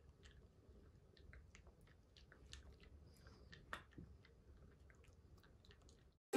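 Black mame-shiba puppy chewing small dog treats: faint, irregular clicks of teeth on the treats, with one louder click a little past the middle.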